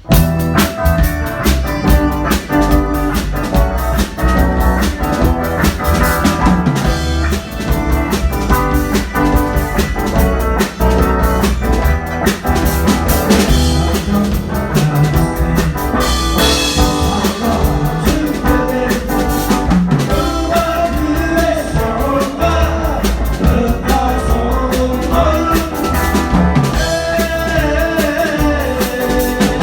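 A band playing live: a drum kit keeps a steady beat under other instruments, and a singing voice comes in over them about two-thirds of the way through.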